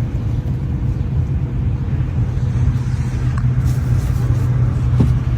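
Steady low engine rumble, like a vehicle running close by.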